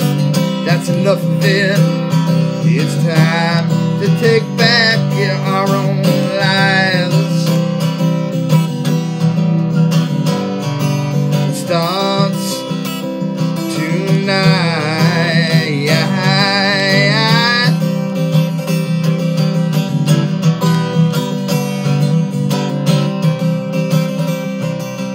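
A guitar strummed steadily as song accompaniment, with a man singing long wavering notes over it in phrases.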